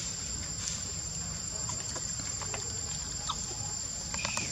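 Steady, high-pitched insect chorus droning without a break, with scattered small clicks and a brief high chirp near the end.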